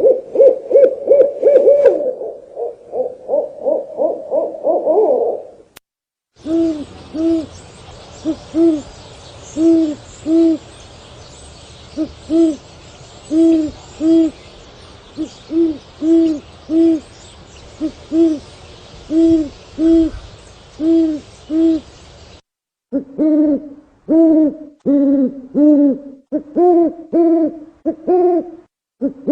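Owl hooting in a series of separate recordings. First comes a fast run of hoots. After a short break, single hoots come roughly once a second over a faint background hiss. Near the end a louder, quicker run of hoots follows.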